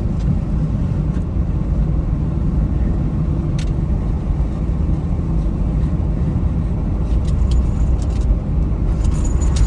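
Jeep Gladiator being driven: a steady low road-and-engine rumble, with a few faint clicks.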